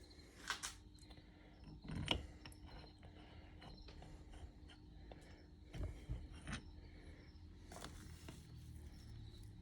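Faint scattered clicks, knocks and scrapes of caliper bolts and small metal parts being handled at a workbench while the bolts are coated with anti-seize. A few louder knocks come about half a second in, around two seconds and around six seconds.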